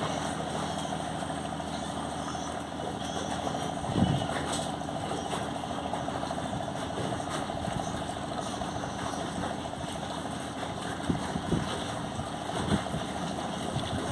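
A boat's engine running steadily with an even drone, with a few short knocks over it, the loudest about four seconds in.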